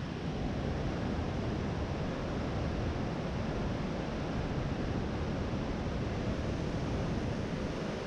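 Steady rushing of whitewater from the waterfall and rapids below, an even roar that does not change, with wind buffeting the microphone.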